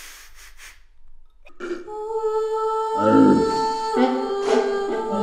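A few quick sniffs, then from about a second and a half in, music with held notes and a humming voice over it.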